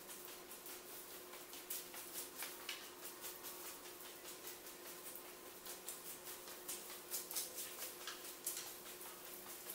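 Faint, irregular crackling and small ticks, like loose VHS tape crinkling, with clusters about two seconds in and again near the end, over a steady low hum.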